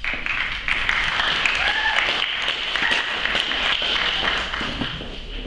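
Audience applauding, starting suddenly and dying down toward the end.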